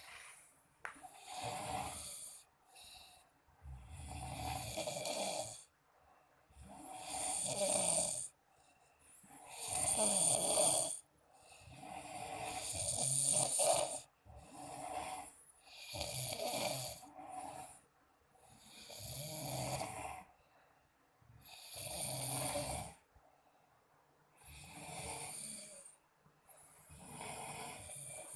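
Two people snoring in their sleep, loud rasping snores coming about every two seconds, some overlapping.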